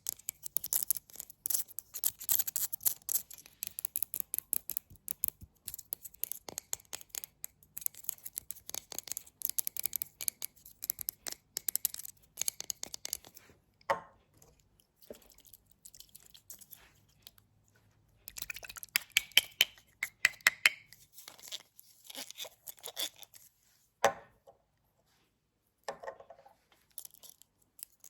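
Close-microphone ASMR tapping and knocking: rapid flurries of crisp little taps and clicks, with a few single louder, duller knocks in between.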